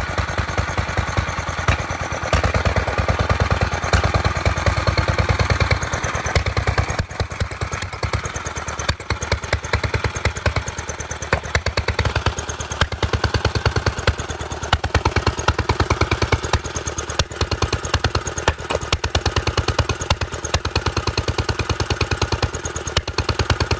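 1934 International Harvester LA single-cylinder engine running steadily after a hard start, its firing beats coming in a rapid even rhythm. It runs louder for the first several seconds, then settles a little quieter.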